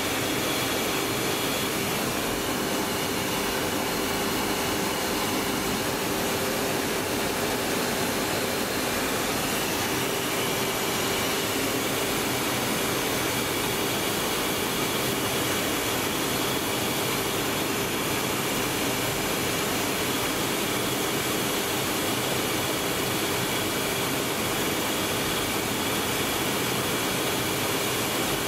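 Steady roar of jet engine and airflow noise inside the cockpit of a Tornado GR4 in fast low-level flight, with a steady hum and a few faint high whines running through it.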